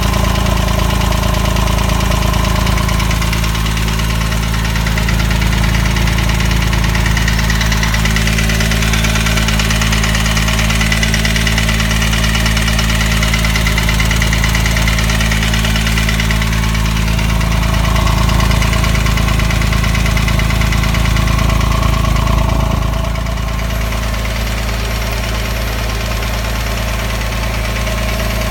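Porsche 997 3.8's flat-six engine idling steadily with a knocking noise, which the owner puts down to piston slap or a hydraulic lifter. The sound gets slightly quieter about three-quarters of the way through.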